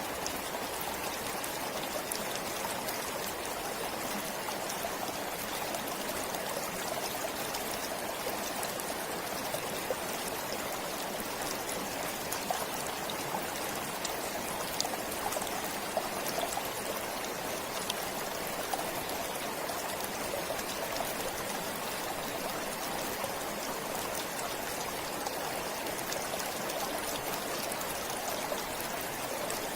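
Forest stream flowing steadily: a continuous, even rush of running water with faint small splashes and trickles.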